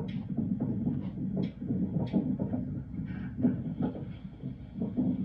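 A low, uneven throbbing rumble.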